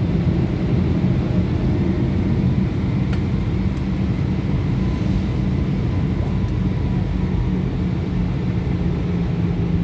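Airbus A320-214 cabin noise while taxiing, heard from a window seat beside the wing: a steady low drone with a hum from its CFM56 engines at taxi power.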